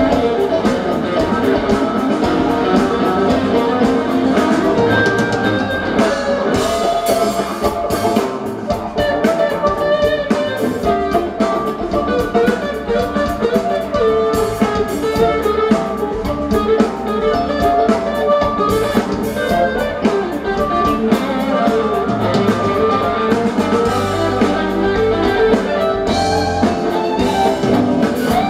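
Live rock band playing: electric guitars over a drum kit, heard loud and continuous from the audience.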